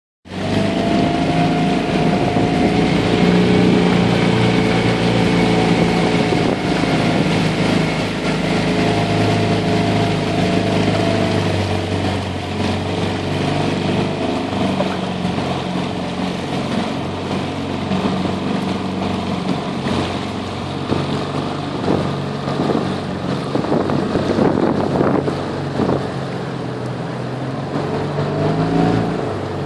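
Outboard motor of a small aluminium boat running steadily at low speed, its pitch dipping and rising a few times and briefly rising near the end.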